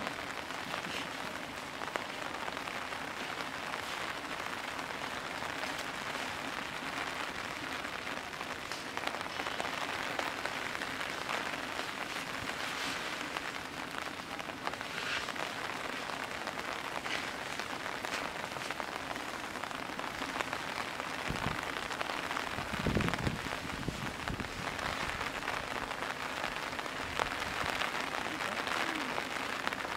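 Heavy rain falling steadily on surfaces, an even hiss of drops, with a brief low rumble about two-thirds of the way through.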